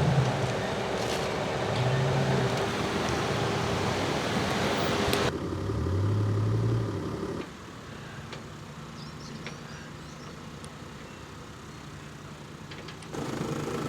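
Off-road 4x4 engine running under varying throttle, its pitch stepping up and down, then dropping to a quieter, lower hum about halfway through before picking up again near the end.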